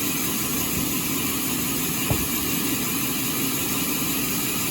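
Sawmill machinery running, a steady mechanical hum with hiss, with one short knock about two seconds in.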